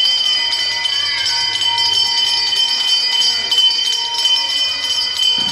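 Bells ringing in a continuous peal: many quick strikes over a sustained high ring.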